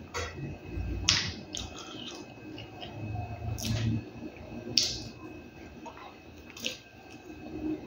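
Close-up eating sounds: a man chewing spoonfuls of rice, beans and couscous, with five or so sharp wet clicks and smacks from the mouth and spoon.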